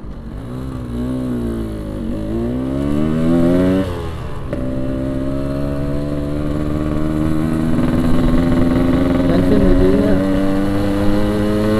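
Yamaha RX-King 135cc single-cylinder two-stroke engine, running low on fuel: revved up and down for the first four seconds, then pulling steadily with its pitch slowly climbing as the motorcycle rides on.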